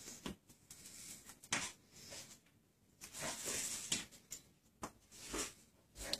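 Faint, scattered light taps and soft scuffles as a blue Indian ringneck parakeet moves about on a stone countertop and pecks at its reflection in a mirror.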